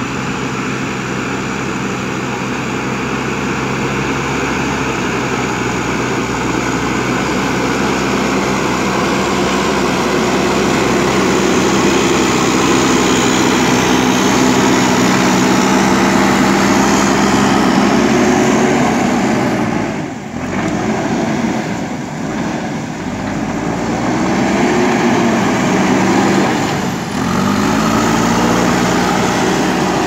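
JCB backhoe loader's diesel engine running under load as the front bucket pushes soil. The engine's pitch is steady at first, then rises and falls with the throttle in the second half, and the sound dips briefly about twenty and twenty-seven seconds in.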